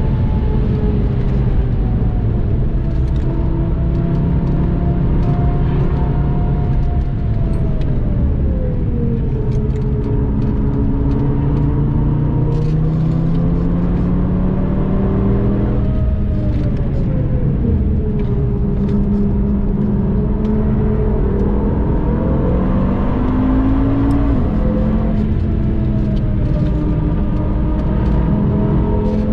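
Audi TT RS turbocharged five-cylinder engine heard from inside the cabin, with road and tyre noise. The engine pitch falls as the car slows for corners, then rises under acceleration, breaking off sharply once at a shift.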